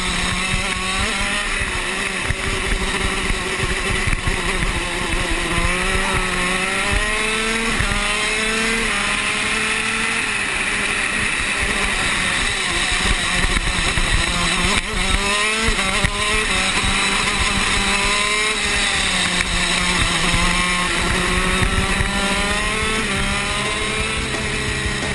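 Shifter kart's two-stroke engine heard from on board at racing speed, its pitch climbing and dropping back again and again as it revs up through the gears and slows for the corners.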